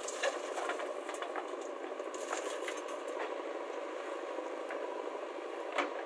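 JCB backhoe loader at work, its engine running steadily, with a sharp knock just after the start and another near the end as the bucket dumps and digs.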